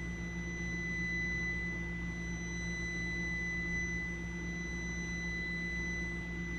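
Multimeter continuity beeper sounding one steady, unbroken high-pitched tone: the pressure switch's common and normally open contacts are still closed while its adjustment screw is being tightened. A steady low hum lies underneath.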